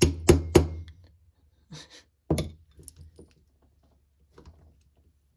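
Hand tool being struck into stripped screw heads to make it bite before unscrewing: three quick, sharp hits, then another hard hit about two seconds later, with a few lighter taps.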